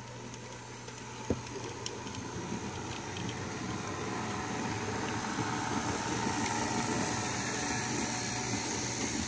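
HO-scale model train of M62 diesel locomotive models running along the track, a steady hum with wheel-and-rail noise that grows louder as it comes past, and one sharp click about a second in.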